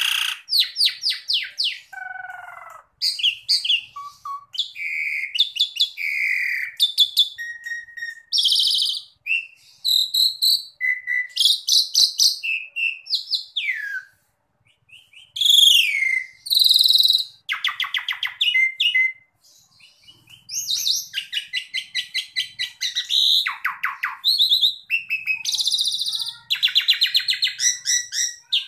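Asian pied starling (jalak suren) singing continuously: a varied song of fast chattering rattles, clear whistles and slurred gliding notes, with a brief pause about halfway through.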